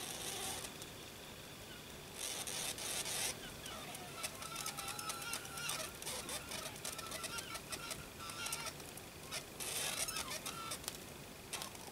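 Brass Hero's steam engine (aeolipile) spinning over its meths burner: steam hissing and spitting from its jets in uneven bursts, with wavering squeaky whistles coming and going.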